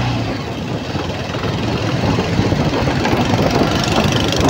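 Motorcycle engine running steadily beneath the rider, with the noise of surrounding street traffic.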